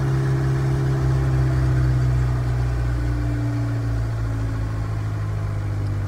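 John Deere skid steer's Yanmar diesel engine running at a raised speed of about 2000 rpm for a stationary DPF regeneration, then winding down from about two seconds in as the regen is cancelled.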